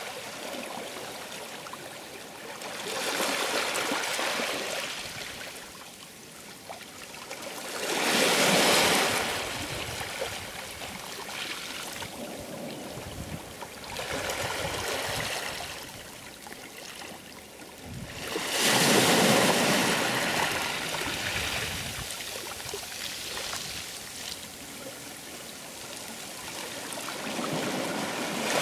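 Sea waves surging in and washing back, each surge swelling and falling away every four to six seconds.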